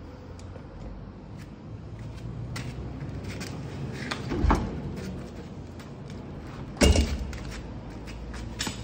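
Hand tools clicking, knocking and scraping on metal while a fridge compressor is being worked loose, with two louder clanks about four and a half and seven seconds in.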